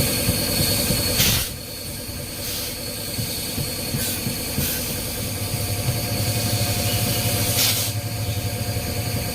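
An engine runs steadily under a loud hiss of air, which cuts off suddenly about a second and a half in. A second short hiss comes near the end.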